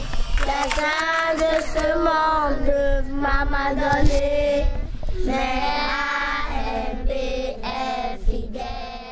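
Children singing a song, with long held notes.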